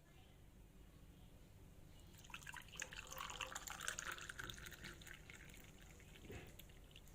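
Liquid dripping and splashing, a quick run of small drips and splashes that starts about two seconds in and fades out about three seconds later.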